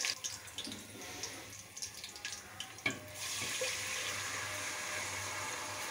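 Dry fruits and spices crackling in hot oil and ghee in an aluminium pot. After a knock about three seconds in, jaggery syrup is poured into the hot pot, making a steady pouring rush.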